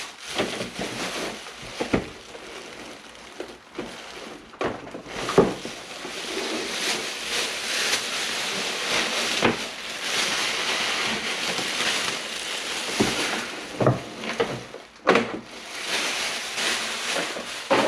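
Packaging being handled while a mini split unit is unpacked: crinkling and rustling of plastic wrap and foam, with several sharp knocks and bumps as parts are moved.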